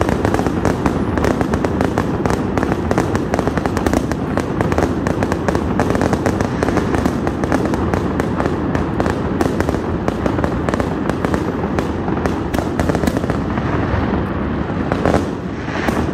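Fireworks display: a dense, continuous barrage of bangs and crackling bursts, with one louder boom near the end.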